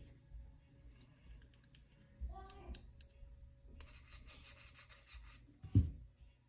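A pocketknife blade scraping at a carburetor's plastic vacuum piston for about two seconds, then a single soft thump near the end.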